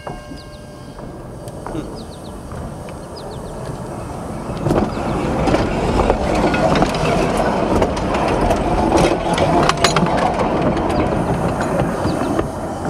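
Peter Witt streetcar #2894 rolling down the track and passing directly overhead: a rumble of steel wheels on rail that swells from about five seconds in and stays loud as the car goes over, with sharp clicks and knocks from the wheels and trucks.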